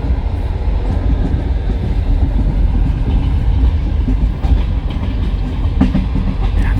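Passenger train wheels running on the rails: a steady low rumble with the clack of the wheels over rail joints.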